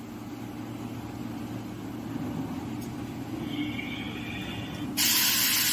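Laser tube-cutting machine pausing between cuts: the loud hiss of cutting stops, leaving a steady machine hum while the chuck turns the square steel tube, with a faint high whine near the end. About five seconds in, the cutting hiss starts again abruptly.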